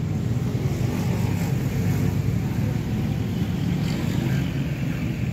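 A steady low engine rumble from a vehicle, unchanging throughout.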